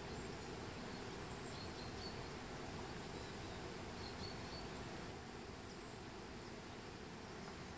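Quiet outdoor ambience: a steady low hiss with faint, scattered high chirps.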